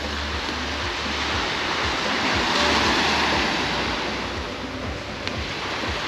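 Small waves breaking and washing up on a sandy shore, the surf swelling about halfway through, with wind rumbling on the microphone and a single sharp click near the end.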